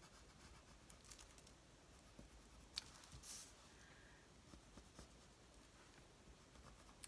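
Near silence: room tone with a few faint, brief clicks and a short soft rustle.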